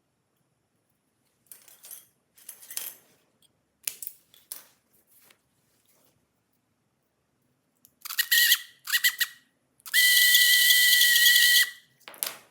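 Small toy DC motor powered in short bursts, then run for about two seconds with a steady high whine and brush hiss, stopping suddenly. Before that come a few light scraping handling noises.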